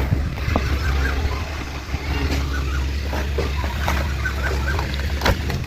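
Steady low rumble of moving air buffeting the microphone, which drops away near the end, with a few clicks and faint bird calls behind it.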